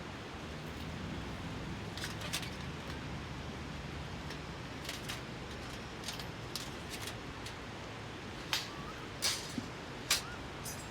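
Steady background hiss with scattered short, sharp clicks and taps, about ten in all; the three loudest come near the end.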